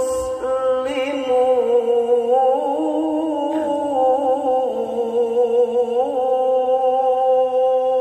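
A male Quran reciter holding one long, ornamented sung note in melodic tilawah recitation, the voice wavering with vibrato and sliding between a few held pitches.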